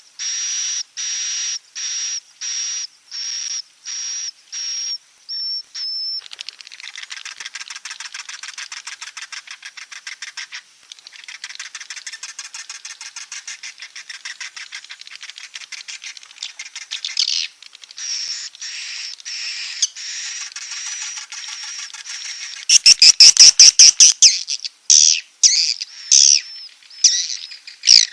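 Recorded edible-nest swiftlet calls of the kind played as a roosting lure in swiftlet houses. A run of short high chirps comes about two a second, then long stretches of fast buzzy twittering, then louder sharp chirps near the end.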